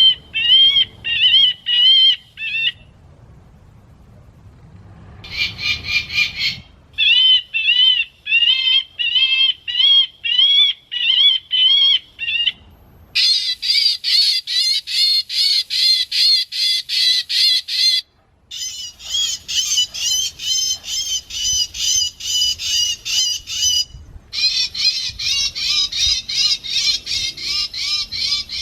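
Shrill, harsh bird calls repeated evenly, about two to three a second, in several long runs that start and stop abruptly.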